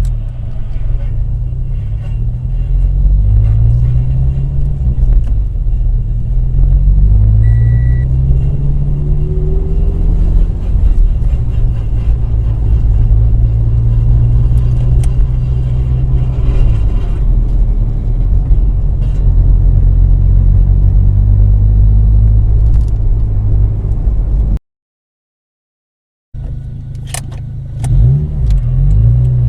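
Turbocharged Toyota 86 flat-four engine with an HKS 4135 turbo kit running and being revved, its pitch rising and falling several times, then holding steadier. It carries an abnormal noise that the owner cannot identify. The sound cuts out for a second or two about 25 seconds in, then the engine is heard again.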